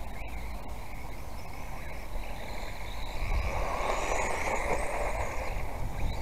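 Small 1/18-scale electric RC car running on a dirt track, a steady whine with a noisy rush of tyres on loose dirt that grows louder about three seconds in.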